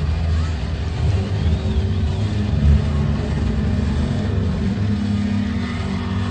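Loud, steady low-pitched droning noise from amplified instruments, with a faint wavering whistle about a second and a half in.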